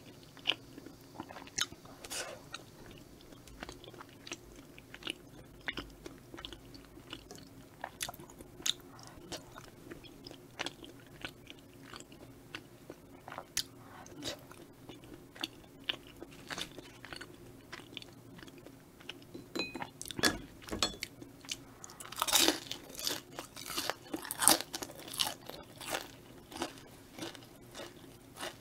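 Close-miked chewing: soft, sticky clicks of chewy tteokbokki rice cakes being eaten. About three-quarters of the way in comes a denser run of loud crunches from biting into a piece of battered Korean fried food (twigim).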